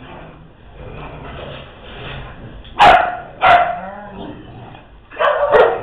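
Dog barks during play: two loud barks about three seconds in and two more close together near the end.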